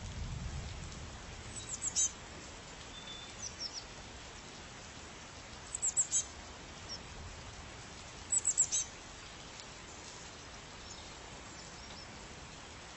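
A songbird calling in short quick bursts of three to five high descending notes, about four times, over a steady background hiss.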